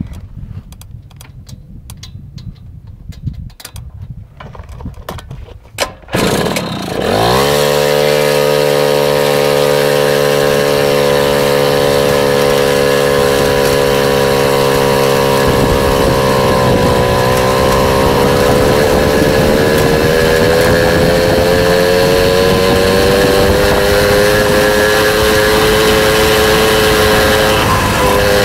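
A rumbling noise with scattered clicks, then about six seconds in a small motorbike engine starts suddenly, revs up quickly and runs steadily. Its pitch dips around sixteen seconds in, then climbs slowly as it gathers speed.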